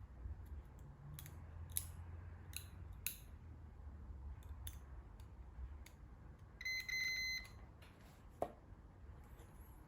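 Digital multimeter's continuity buzzer giving one high beep of just under a second, stuttering as the probe tip makes and breaks contact, signalling a connected wire in the harness. Small clicks and taps of the probes and connector being handled come throughout.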